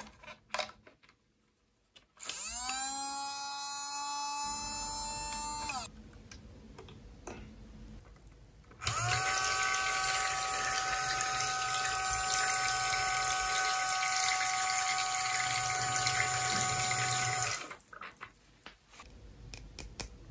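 Small battery-powered pump in a toy bathtub's shower running twice with a steady whir: a short run of about four seconds that spins up with a rising whine, then a longer, louder run of about nine seconds while water sprays from the shower head. Light plastic clicks from handling come before and after.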